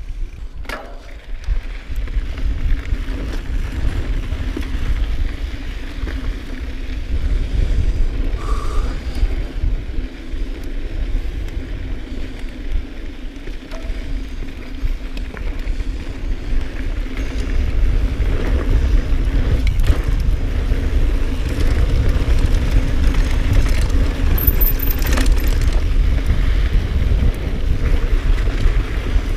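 Intense Tracer mountain bike riding a dirt trail: a steady low rumble of wind and tyre noise, with a faint steady hum and scattered clicks and rattles from the bike, getting somewhat louder past the middle.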